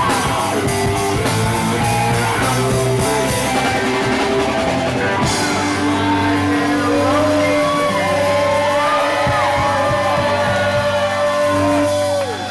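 Live rock band with guitars, drums and singing playing a song. About halfway through, the band settles into a long held note over a sustained final chord, which stops near the end.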